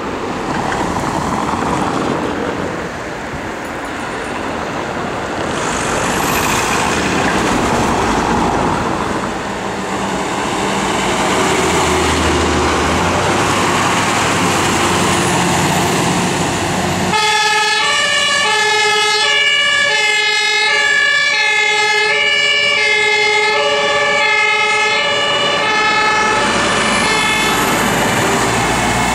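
Fire engines passing on an emergency run, diesel engines running under road noise. From a little past halfway a loud German two-tone compressed-air siren (Martinshorn) sounds, its two pitches alternating steadily.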